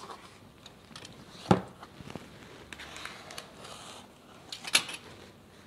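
A taped cardboard parcel being handled on a tile floor, with light rustling and small scattered clicks. There is a thump about a second and a half in, and a sharp click from the box cutter near the end.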